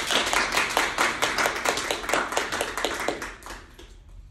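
Audience applauding: many hands clapping at once, dying away about three and a half seconds in.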